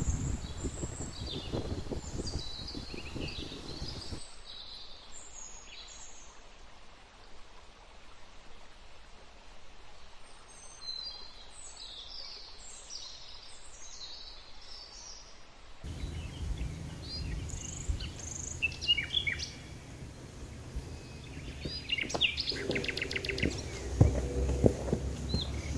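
Small songbirds chirping and singing in short, high notes, over a low rushing noise that comes in after about sixteen seconds. Near the end come a few louder knocks of footsteps on a forest trail.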